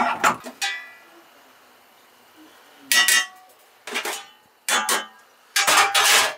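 Stainless-steel ladle and steam-table lids clinking against stainless pans: three sharp metallic clinks with a short ring in the first second, then more knocks and clatter about every second from the middle on as a lid is handled.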